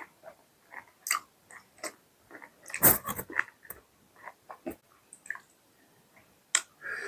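Close-up chewing and mouth sounds of someone eating mutton curry with roti: wet smacks and short crunches at an uneven pace, with a louder knock or crunch about three seconds in.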